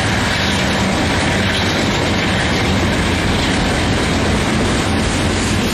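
Double-stack intermodal well cars rolling past, giving a steady noise of steel wheels on rail.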